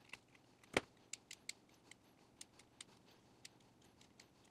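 Small hand cutters snipping and clicking as they trim moisture stringing from inside a 3D-printed TPU part: one sharper click a little under a second in, then a run of faint, irregular clicks.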